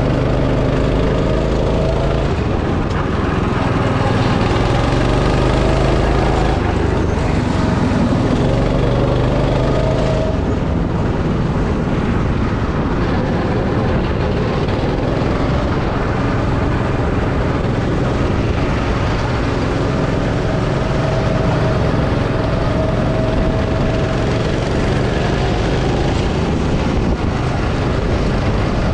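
Go-kart engine running at full throttle. Its pitch climbs several times as it accelerates and drops away between climbs, over a constant rushing noise.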